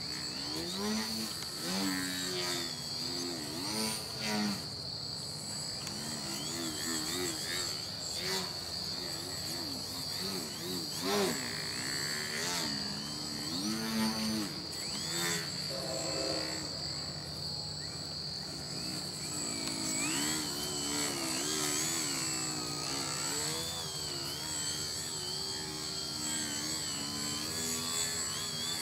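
Electric motor and propeller of a Crack Yak foam 3D aerobatic model airplane in flight, its pitch rising and falling constantly with the throttle through the manoeuvres. A steady high chirring of night insects runs underneath.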